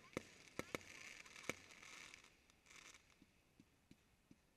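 Aerial fireworks shells bursting: four sharp bangs in the first second and a half, then a few fainter pops.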